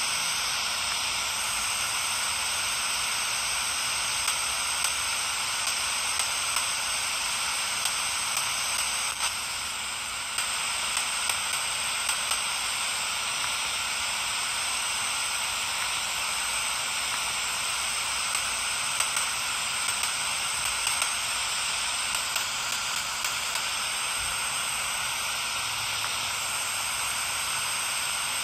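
Steady static hiss from a 4732 mini multiband radio's speaker, tuned to no station, with small crackles scattered through it.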